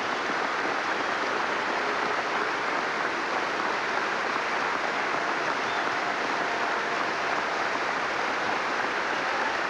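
Large arena crowd applauding steadily, a dense even wash of clapping that runs unbroken.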